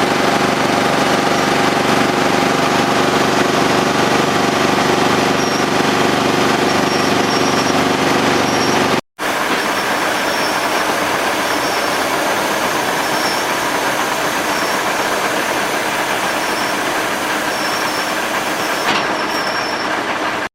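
Demuth mobile drum wood chipper running, driven through the PTO by a 400 hp Massey Ferguson wheel tractor: a steady, loud mechanical din. The sound cuts out for an instant about nine seconds in, then carries on the same.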